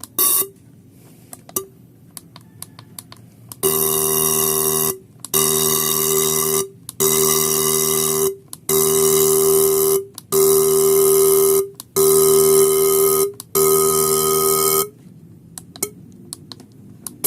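Toyota 4A-FE fuel injector being pulsed on an injector cleaning bench in seven even bursts: a steady electric buzz with a hissing spray. Its nozzle tip is dirty and seeping, and the pulsing is working the dirt out.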